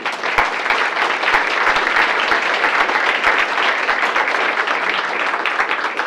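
Audience applauding, a dense patter of many hands clapping that holds steady throughout.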